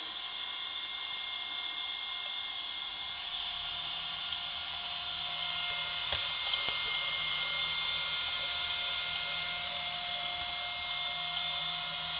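Frequency inverter's cooling fan running with a steady whine, while the induction motor it drives spins up, a low hum coming in about three seconds in. The motor is still below the speed at which it starts knocking; a couple of faint clicks come near the middle.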